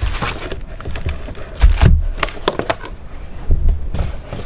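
Cardboard box and packaging being handled while a sewing machine's wide extension table is unpacked: scattered clicks and rustles with dull thumps, the loudest about two seconds in and another near three and a half seconds.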